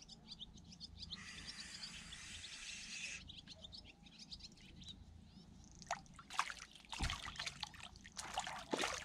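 Small birds chirping faintly over a steady rushing that stops about three seconds in. From about six seconds in, a run of sharp knocks and rustles, the loudest sounds, with a dull thump about seven seconds in.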